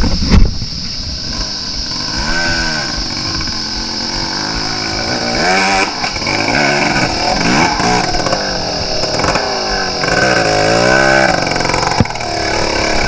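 Dirt bike engine revving hard up a steep dirt climb, its pitch rising and falling in repeated surges as the rider works the throttle.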